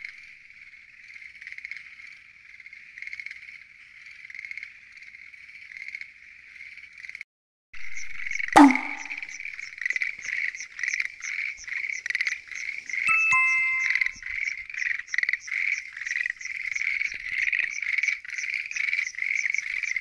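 Dense chorus of many frogs calling together, a fast pulsing chatter that goes on without pause. It is fainter for the first seven seconds, breaks off briefly, and returns louder and closer, with one short sharp sound just after the break.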